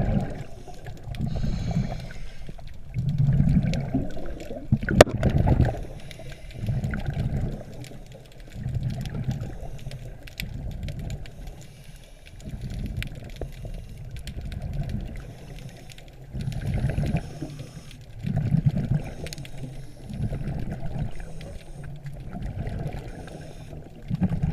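Muffled underwater water noise through a GoPro Hero 3's waterproof housing: water rushing and gurgling over the hand-held camera in uneven low surges every second or two. A single sharp knock about five seconds in.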